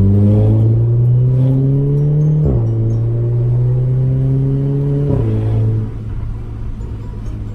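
Audi A3 quattro with a 2.5-inch straight-piped exhaust, accelerating through the gears. The engine note climbs steadily and drops sharply at two quick DSG upshifts, about two and a half and five seconds in. Near the end it settles to a quieter, steady note.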